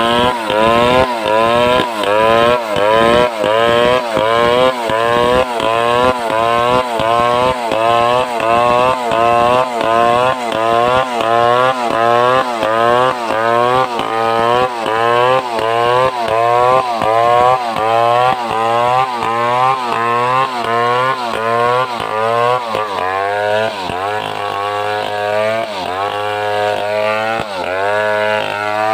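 Assembled Stihl 070-type chainsaw's large two-stroke engine running under load in a cut, its pitch rising and falling rhythmically about one and a half times a second. Near the end the cycles slow and the pitch sits lower.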